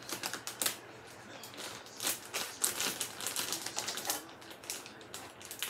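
Plastic zip-top bag of shredded Parmesan being pulled open: the zip seal and the plastic crackle and crinkle in a run of quick, irregular clicks.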